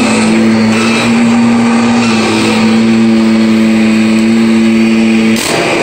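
Kirby upright vacuum cleaner running on carpet: a loud, steady motor hum over the rush of air and the brush roller. Near the end the hum cuts out suddenly, leaving only a rushing noise.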